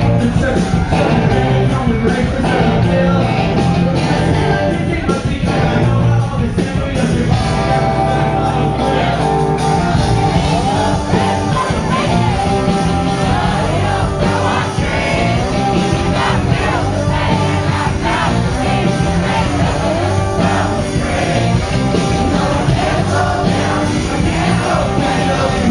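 A rock band playing loudly live, with a male lead singer's vocals over the band.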